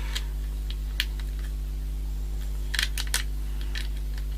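Light, sharp plastic clicks from handling a small action camera: single clicks about a second apart, then a quick run of three about three seconds in, over a steady low electrical hum.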